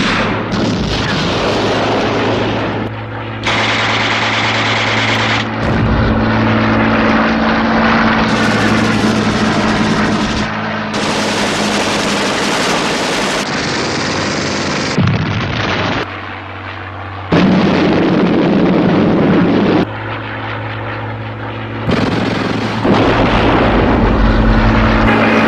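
A rapid montage of war sound effects cut together every couple of seconds: gunfire, aircraft engines and explosions, over a steady low drone.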